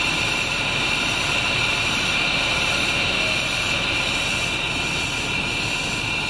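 Mercedes-Benz coach's rear-mounted diesel engine running steadily at standstill, heard close to the open engine compartment, with a steady high-pitched whine over the engine noise.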